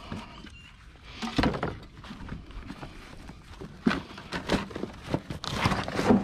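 Scrap metal being handled and loaded, giving a run of irregular clanks and knocks. The loudest knock comes about a second and a half in, and a longer clatter comes near the end.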